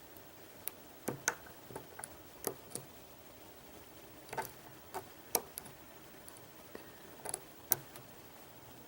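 Faint, irregular small metallic clicks from pins of a Mul-T-Lock Interactive cylinder being picked, about a dozen spread unevenly; pins setting while the lock sits in a slight false set.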